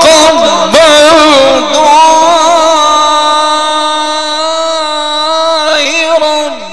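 A man reciting the Quran in the melodic Egyptian mujawwad style, drawing out a melismatic phrase. An ornamented opening gives way to one long held note with vibrato, which slowly fades before a brief break for breath near the end.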